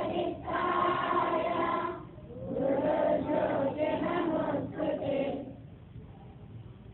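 A group of schoolgirls singing a prayer in unison, in two phrases with a short break about two seconds in. The singing stops about five and a half seconds in, leaving a low steady background noise.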